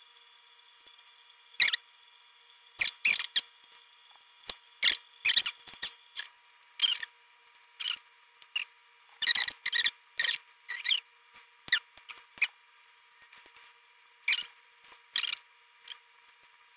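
Brittle, bony pieces of braised food being pulled and broken apart by hand, giving irregular short crackles and snaps with brief pauses between them.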